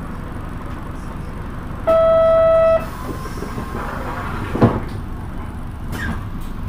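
Steady running noise of a KK-MK27HM bus. About two seconds in a loud single buzzer tone sounds for about a second, and a dull thump follows about two seconds later.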